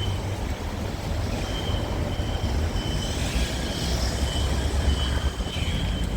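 Rail maintenance vehicle's engine running with a steady low rumble during shunting, with a thin high whine that comes and goes.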